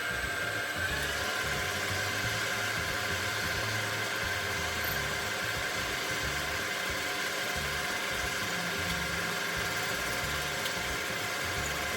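Benchtop metal lathe running steadily, its motor giving a constant high whine over a low rumble.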